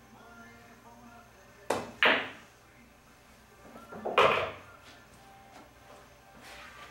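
Pool shot: a cue strike and then sharp clacks of billiard balls hitting each other, a pair about a second and a half in and another cluster about four seconds in, each ringing briefly.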